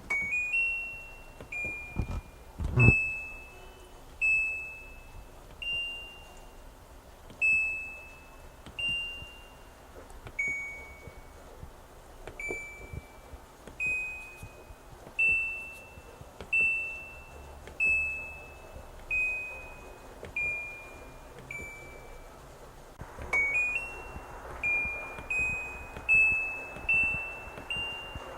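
Washing machine control-panel buttons being pressed one after another, each press giving a short electronic beep that fades out. The beeps step slightly up and down in pitch and come about once a second, with a few quick runs of beeps. A couple of louder clicks from the buttons come about two and three seconds in.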